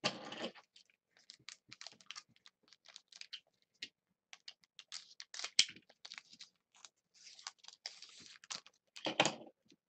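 A trading card pack wrapper is handled and worked open with a small plastic pack opener. It makes a quick run of light crinkles, clicks and scratches, with a louder rustle at the start and another about nine seconds in.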